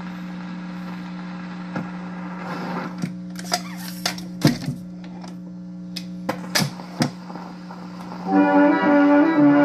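RCA 331 radio-phonograph's automatic record changer cycling over a steady hum: a string of mechanical clicks and clunks as the tone arm lifts and the next 78 rpm record drops into place, the loudest clunk about four and a half seconds in. Near the end, dance-band music with horns starts playing from the new record.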